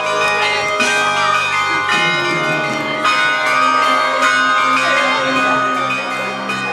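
A set of tuned bells mounted in rows on a wagon being played: many bells struck in quick succession, their tones ringing on and overlapping.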